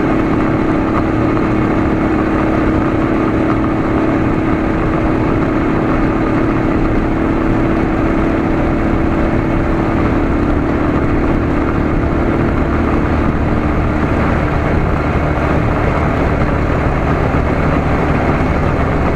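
Motorcycle engine running steadily while riding, under a constant rush of wind and road noise. The engine note shifts lower about two-thirds of the way through.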